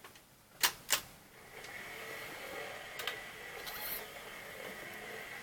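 Vintage Schaub-Lorenz record player being started: two sharp clicks about a third of a second apart, then from about a second and a half in a steady mechanical whir with a thin high tone and a few scattered ticks.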